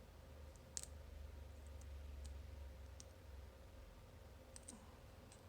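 A lock-pick hook working the pins inside a small cruciform bike lock, giving faint, sparse metallic clicks, one every second or so, over a low steady hum.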